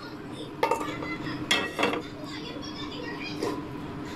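Metal spoon scraping and clinking against a cooking pan as food is scraped out onto a plate, with a few sharp clatters over a steady low hum.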